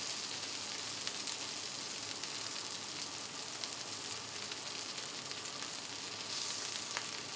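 Chicken wings and buttered corn sizzling steadily on a hot flat-top griddle.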